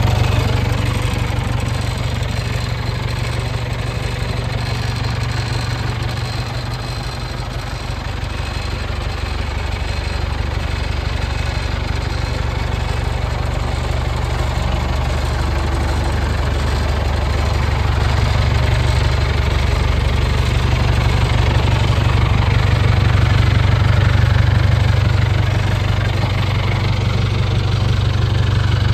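1975 International 574 tractor's engine idling steadily.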